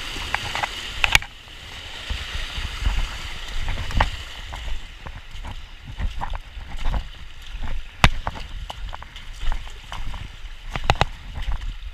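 Rushing river water with splashing and sloshing as someone wades and climbs through it. Low bumps and a few sharp knocks come from handling and contact, about one, four, eight and eleven seconds in.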